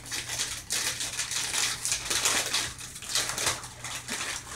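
Plastic wrapper of an Oreo cookie package crinkling in irregular crackles as it is opened and handled.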